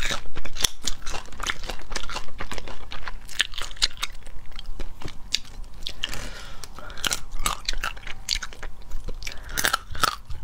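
Crayfish shell cracking and thin crayfish legs being bitten and chewed: a run of sharp, irregular crackles and crunches.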